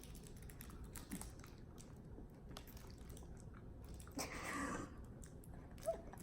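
Faint chewing and small mouth clicks of a person eating a soft guava-and-banana sweet, with a short breathy sound about four seconds in.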